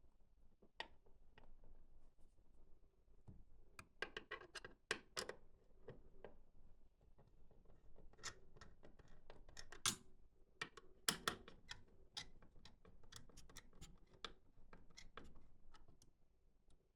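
Irregular small clicks, taps and scrapes of hard parts being handled, busiest and sharpest in the middle stretch.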